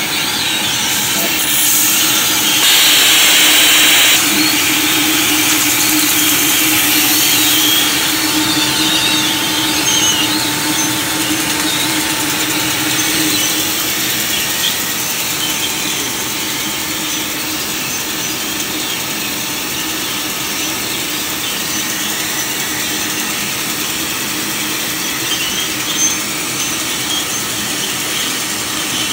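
Trumpf CNC laser cutting machine cutting 12 mm steel plate: a steady hiss from the cutting head with a steady hum under it, the hiss briefly louder about three seconds in.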